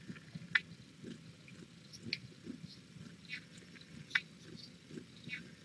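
Kittens playing and scrambling on a blanket in their wire pen: soft rustling with a few sharp clicks about a second or more apart.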